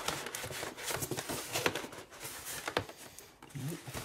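Styrofoam packing blocks and plastic wrap being shifted inside a cardboard TV box: irregular rubbing with a scatter of short knocks and taps.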